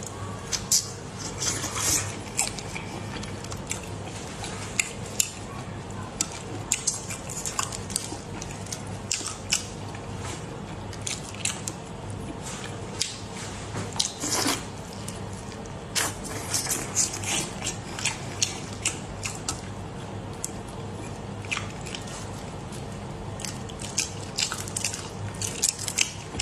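Close-up eating sounds of raw soy-marinated shrimp: wet sucking, smacking and chewing, with irregular sharp clicks and the crackle of shell being peeled, over a faint steady low hum.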